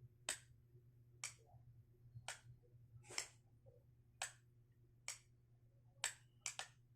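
Faint clicks of a light's on/off switch keying the Morse code for the digit 9 (four long flashes and one short). The clicks come about a second apart, then two quick clicks near the end for the short flash.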